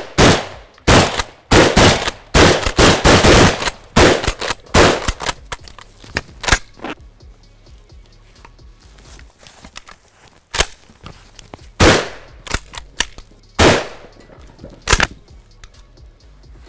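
12-gauge shotguns firing slugs: a rapid string of shots from two guns in the first four seconds, then single shots a second or two apart in the last third.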